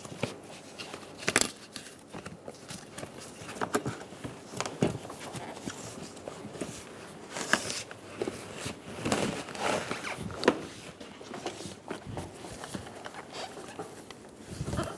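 Plastic upper grille of a 2007–2011 Toyota Camry being pressed into the front bumper cover, its clips snapping into place with irregular clicks and scrapes, along with gloved hands rubbing on the plastic.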